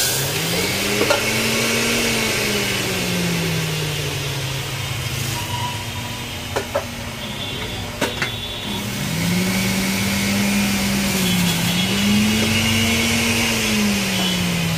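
Miyako electric juicer running as orange is pushed through it, its motor hum sagging and recovering in pitch as the fruit loads it. A few sharp clicks come about halfway through.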